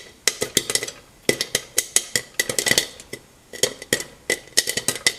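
Popcorn kernels popping fast in a pan on the stove, sharp irregular pops several a second, some hitting the pan and lid with a metallic clink.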